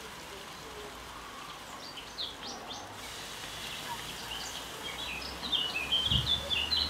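Songbird chirping: a few short notes about two seconds in, then a fast run of chirps over the last couple of seconds. A low thump comes near the end.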